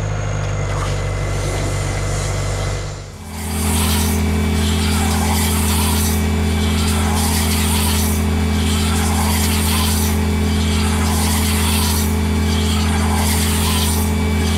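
John Deere tractor engine running steadily while a mounted bale wrapper turns a round bale, with a rhythmic rasping that swells and fades about once a second as the wrap goes on. The sound dips briefly about three seconds in, then comes back closer and louder.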